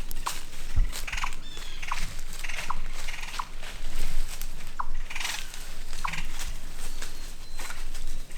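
A series of short animal calls, sharp notes and brief buzzy trills, repeating about once a second.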